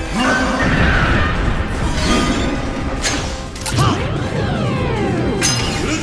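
Dramatic background music over the sound effects of a giant-monster fight: a few sharp crashes and impacts, with falling, wavering tones about four seconds in.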